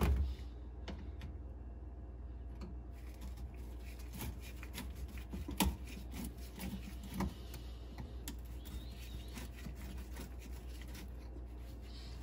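Screwdriver working the hose clamps on a plastic hose T fitting: soft, irregular clicks and ticks, with a sharper click about five and a half seconds in.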